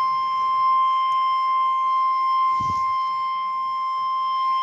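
NOAA Weather Radio warning alarm tone: a single loud, steady tone at 1050 Hz, the signal that an emergency broadcast, here a severe thunderstorm warning, is about to follow.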